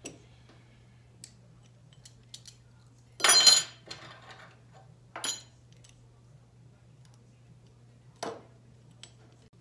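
Loose metal engine parts being handled and set down: one loud ringing metallic clatter about three seconds in, lighter clinks about five and eight seconds in, and a few small ticks between.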